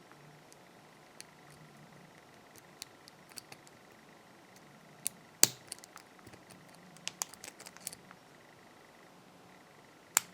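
Light metallic clicks and ticks of a pick and tension wrench working the spool pins of a Burg Wächter 116 padlock, sparse single clicks with a louder click about five and a half seconds in and a quick run of clicks around seven to eight seconds. The plug is being held in a false set while the pins are set one by one.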